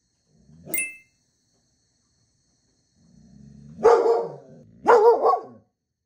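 Small long-haired dog at a glass door giving a low growl, then two loud barks about a second apart: alert barking at something outside. A brief sharp squeak sounds under a second in.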